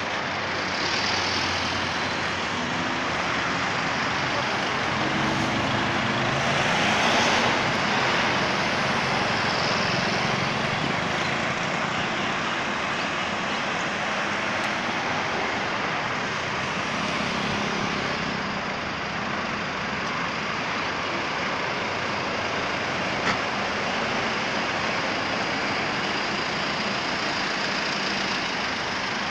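Road traffic passing on a busy multi-lane road: a steady wash of engine and tyre noise that swells briefly as a vehicle passes close, with a single short click later on.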